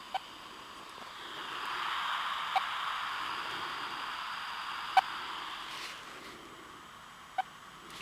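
Handheld radio-telemetry receiver hissing with static and giving a short beep about every two and a half seconds, four in all: the pulse of the timber rattlesnake's radio transmitter picked up through the directional antenna. The static swells louder for a few seconds in the middle.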